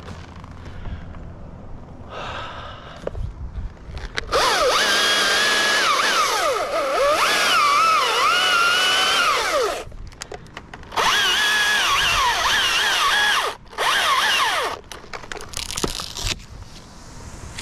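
Husqvarna T540i battery chainsaw cutting a dead birch limb in bursts: one long run of about six seconds, then several shorter ones. Its motor whine wavers and dips in pitch as the chain loads up in the wood.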